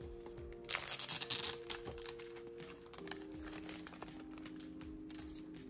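Plastic packaging crinkling and rustling as it is handled and pulled off, loudest for about a second near the start and softer after. Soft background music with held chords plays underneath.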